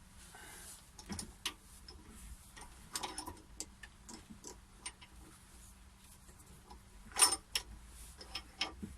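Irregular knocks and clicks of wood and metal parts being handled and set in place at a wood lathe. The loudest knock comes about seven seconds in, over a faint steady hum.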